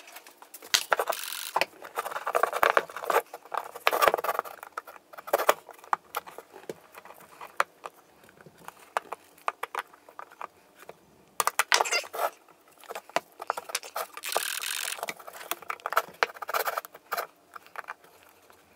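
Gloved hands working rubber grommets out of an aluminium motorcycle radiator's mounting brackets: scattered clicks and taps of the radiator and small parts against the bench, with two stretches of rubbing and scraping.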